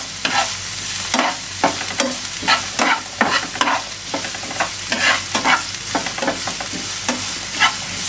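Chopped onion sizzling as it fries in a few tablespoons of oil in a pan, with a spatula stirring and scraping the pan about one to two strokes a second. The onion is being sautéed until golden.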